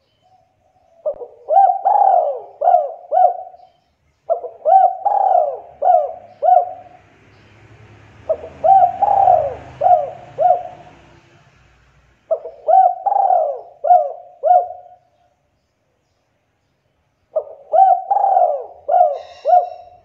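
Spotted dove (tekukur) cooing: five phrases, each a quick run of several coos, spaced a few seconds apart.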